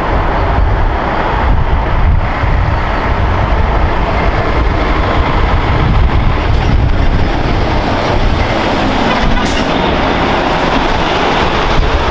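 Mitsubishi Fuso truck and trailer unit driving past close by, a steady heavy rumble of diesel engine and tyres, with a brief hiss near the end.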